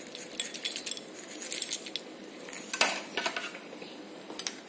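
Crisp fried farsan shaken from a small bowl onto a bowl of misal: scattered light rustles and clicks, with light clinks of the crockery and one sharper knock nearly three seconds in.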